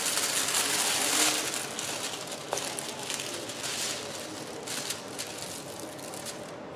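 Clear plastic film crinkling and crackling as hands pull and smooth it over a diamond-painting canvas. It is loudest in the first second and a half, then continues as scattered lighter crackles.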